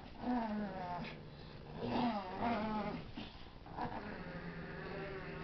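A pug and a Boston terrier play-growling as they tug at a plush toy: a string of drawn-out, wavering growls, the last one long.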